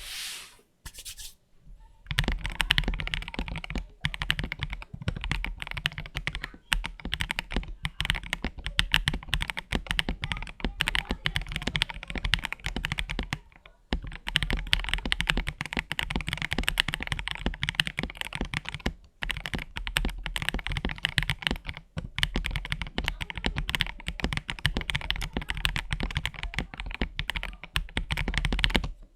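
Typing on a CIY GAS67 gasket-mount mechanical keyboard fitted with Green Snake linear switches: fast, continuous keystrokes, broken by a few short pauses.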